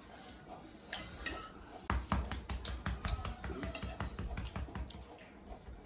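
Crunchy chatpat (puffed rice and sev) being chewed close to the microphone, mixed with spoons clicking and scraping on glass plates. It starts about two seconds in as a quick, irregular run of small crunches and clicks and thins out near the end.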